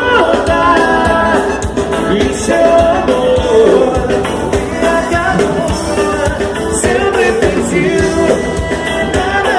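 Brazilian gaúcho dance music with a singing voice over a steady beat.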